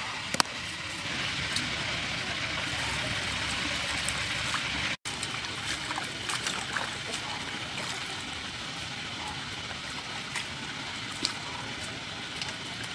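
Hands sloshing mint leaves and peeled cucumbers in a steel bowl of water, with small splashes and drips. Before a brief break about five seconds in there is a steadier hiss with one sharp click near the start.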